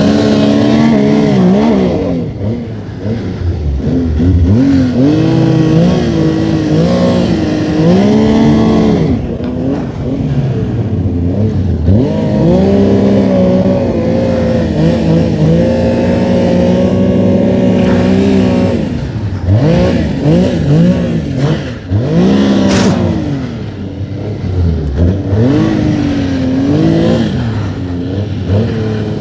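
Snowmobile engine revving up and down under throttle, its pitch rising, holding and dropping again and again. A short sharp click comes about three-quarters of the way through.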